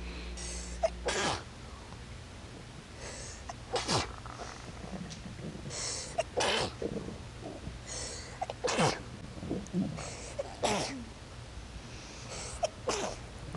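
A person sneezing over and over: about six sharp sneezes roughly two seconds apart, most with a short breathy in-breath just before.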